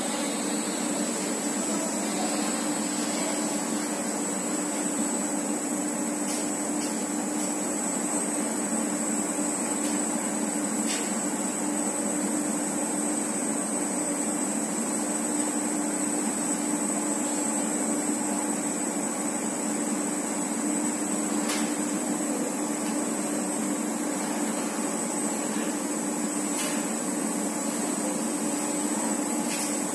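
Steady machinery hum of a Statec Binder semi-automatic big-bag filling line, with a low steady tone under a high hiss, as a filled bag on its pallet moves out along the roller conveyor. A few faint clicks sound over it.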